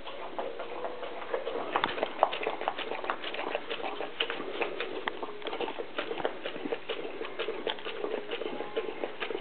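St. Bernard eating from a hand-held plastic bowl: a quick, irregular run of clicks and smacks from its mouth and the bowl.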